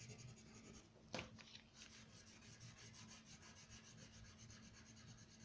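Faint scratching of a wax crayon on paper in quick repeated back-and-forth strokes, with one short sharp tick about a second in.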